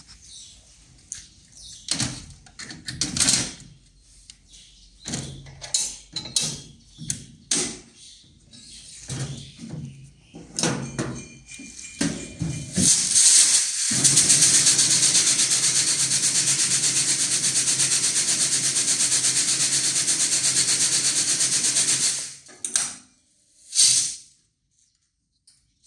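Metal plates and parts of a shock-type fireworks sparkle machine clattering and knocking as they are handled. Then the machine runs for about nine seconds with a loud, steady, even rattle and hum, its shaking mechanism at work, and stops abruptly, followed by two short knocks.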